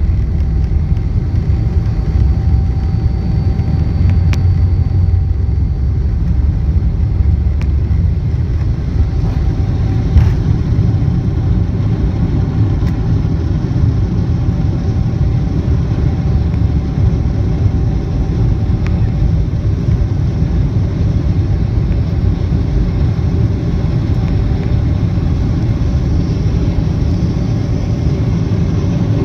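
Jet airliner's wing-mounted turbofan engine at takeoff power, heard from inside the cabin as a loud, steady low rumble with a faint whine above it, through the takeoff roll and climb-out.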